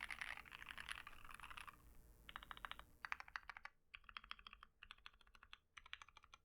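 Typing on an Akko ACR Pro Alice Plus mechanical keyboard fitted with lubed JWick Lagoon switches and a tape mod. The keystrokes come quietly in rapid runs, about six short bursts with brief pauses between them.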